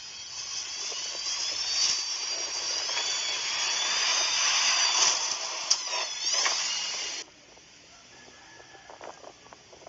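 High-pitched mechanical whine over a rushing hiss, its pitch wavering and gliding, cutting off suddenly about seven seconds in.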